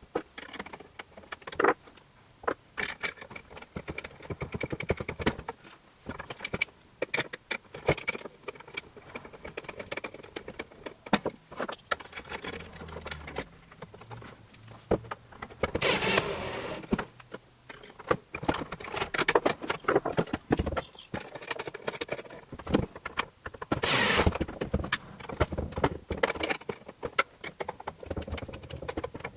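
Small metal parts clicking and clinking irregularly during hand assembly, as machine screws and lock nuts are tightened with a screwdriver and a small wrench, with two longer rustling bursts, about halfway through and near the end.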